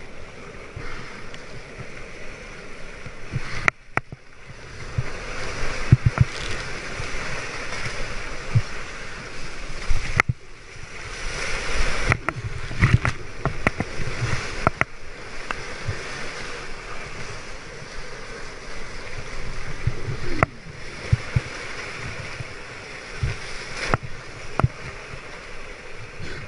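Breaking surf whitewater rushing and hissing around a kayak riding the foam, the wash swelling and easing, with repeated sharp splashes as spray and water hit the kayak and the camera.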